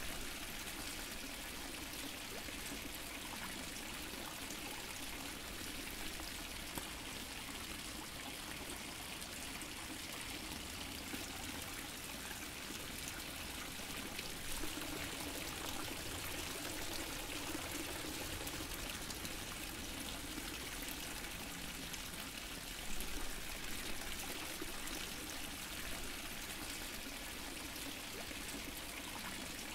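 Water fountain splashing and trickling steadily, with a couple of slightly louder splashes along the way.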